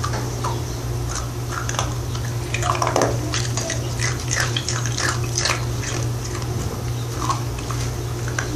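A small dog chewing an ice cube: irregular crisp crunches and clicks, over a steady low hum.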